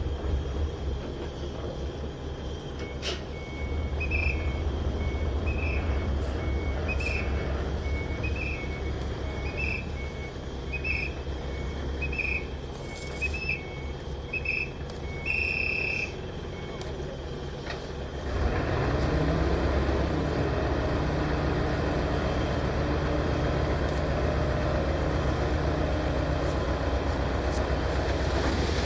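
Heavy diesel construction machinery running steadily with a deep rumble, while a reversing alarm beeps about once a second through the first half. About two-thirds of the way in, the rumble becomes louder and fuller.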